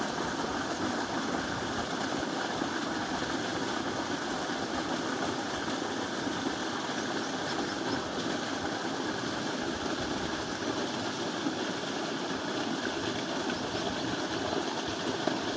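A machine running steadily, with no change in pace.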